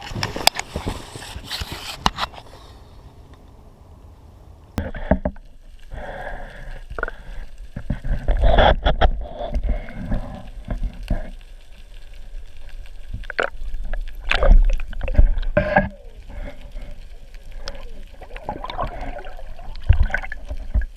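Water sloshing and gurgling around a small boat, with irregular knocks and scrapes.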